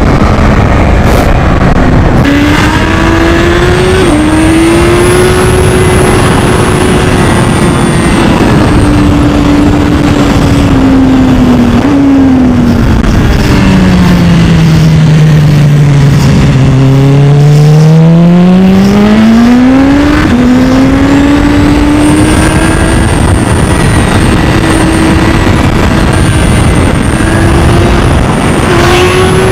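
Sport bike engine heard from the rider's onboard camera, with wind rush over the microphone. The engine note rises and falls with the throttle, sinks slowly to low revs around the middle as the bike slows, then climbs again as it accelerates away.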